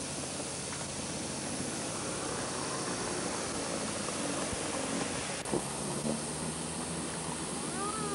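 Steady hiss, with a single click about five and a half seconds in.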